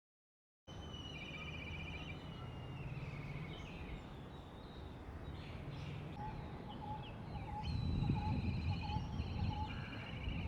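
Black kite giving its quavering, trilled whistling call twice, once near the start and again about seven seconds in, over a steady low background rumble.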